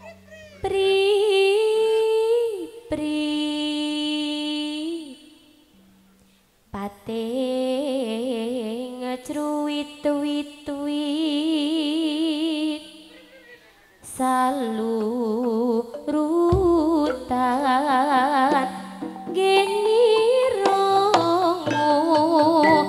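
A Javanese sinden (female gamelan vocalist) singing a slow, ornamented line of long held notes with a wavering vibrato, over gamelan accompaniment. The singing breaks off briefly about six seconds in, then resumes.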